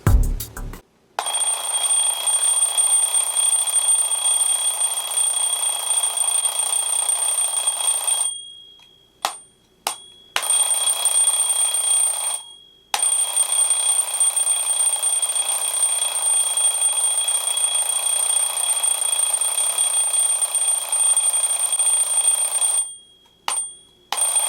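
Alarm clock ringing loudly and steadily, cutting off and starting again several times: a long ring of about seven seconds, two short blips, a two-second ring, then about ten seconds of ringing that ends in two brief blips.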